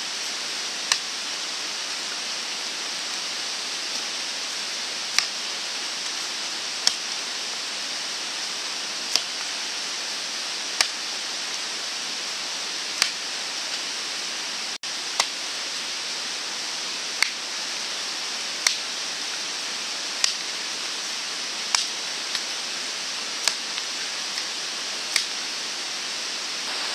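Axe chopping wood: about fifteen sharp, single blows, one every one and a half to two seconds, over a steady hiss.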